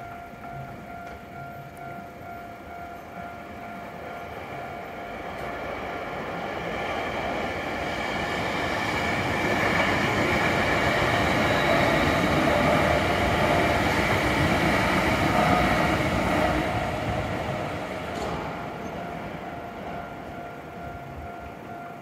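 A Hankyu Kyoto Line electric train passes over a level crossing, its wheels and running noise building up, loudest about halfway through, then fading away. Throughout, the crossing's warning signal keeps ringing steadily.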